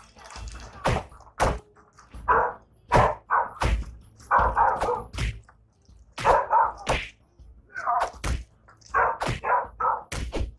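Fistfight: about ten sharp smacking blows landing at an irregular pace, mixed with short harsh cries between the hits.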